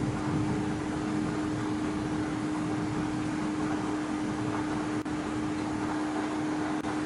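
Steady wind noise during a night thunderstorm, with a constant low hum underneath.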